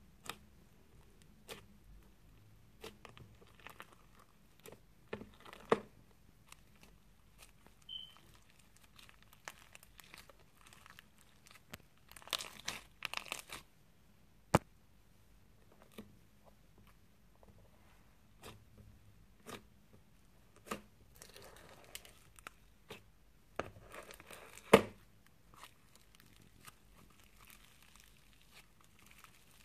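Slime in a plastic palette being poked, squeezed and pulled: scattered crackles and small pops, with two longer stretches of crunching and a few sharp clicks.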